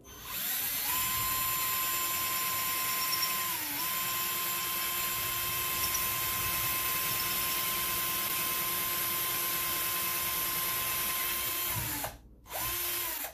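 Cordless drill with a quarter-inch bit boring into a drywall ceiling. The motor spins up to a steady whine and dips briefly in speed about four seconds in. It runs for about eleven seconds and stops, then gives one short second burst just before the end.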